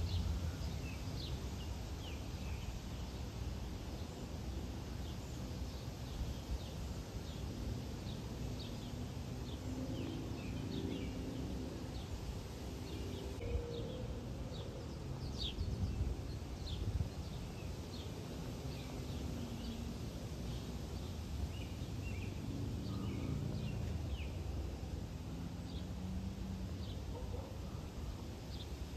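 Birds chirping, short high calls repeated every second or so, over a steady low outdoor rumble.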